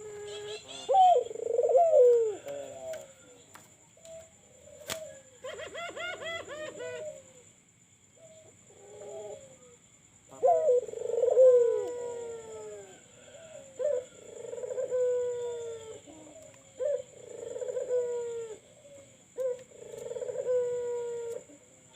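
Barbary doves (puter) cooing: a few coos early on, then a regular series of coo phrases from about halfway in, each sliding down in pitch. A rapid chattering trill from another bird about a quarter of the way in, over a faint steady high-pitched whine.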